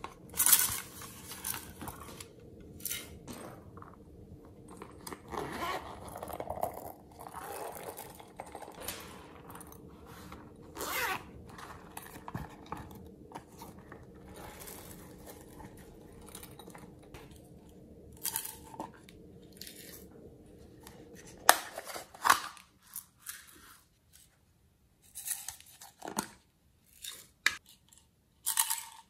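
Hard plastic toy cases and containers handled by hand: irregular clicks, crackles and scrapes. Sharp clicks come right at the start, about midway and in a cluster near the end.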